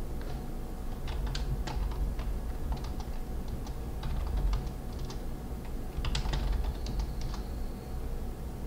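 Computer keyboard being typed on: irregular short runs of keystrokes, with a busier flurry about six seconds in, over a low steady hum.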